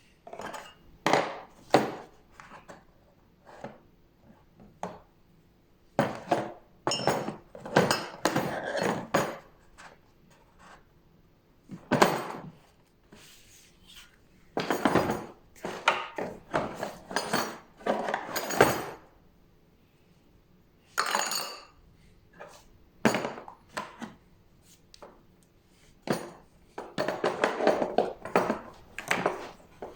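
Hard objects being handled and set down, clinking and knocking in irregular clusters with short pauses between them.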